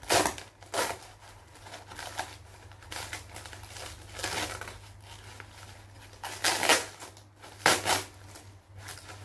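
Thin white plastic packaging being pulled apart and torn open by hand: irregular crinkling and ripping in several short bursts, the sharpest at the very start and twice near the end.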